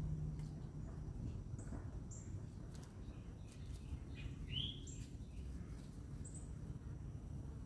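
A few short, high bird chirps scattered over a steady low rumble of outdoor background noise.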